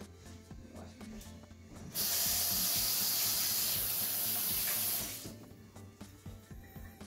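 Kitchen sink tap running: a steady rush of water that starts about two seconds in and shuts off about three seconds later.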